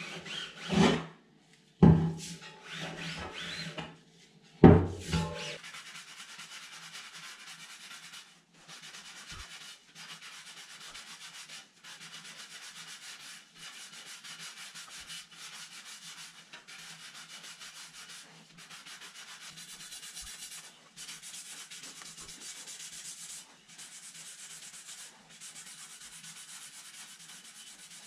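Rag rubbing and wiping a spoked bicycle wheel's rim and spokes by hand, a steady scrubbing noise in stretches of a few seconds with short breaks. A few loud knocks come in the first five seconds.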